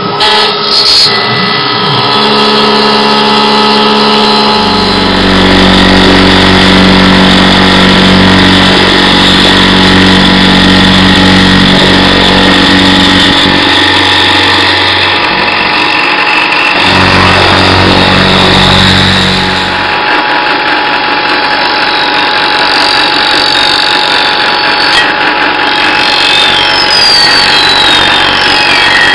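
Tormach CNC milling machine cutting metal with an end mill: a loud, steady spindle-and-cutting whine made of several steady tones, with a heavier low hum for stretches in the middle and a few falling whines near the end.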